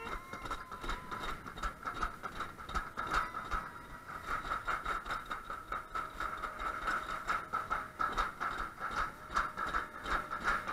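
Summer toboggan sled running fast down a metal trough track: a steady rattling hum with frequent clicks and knocks.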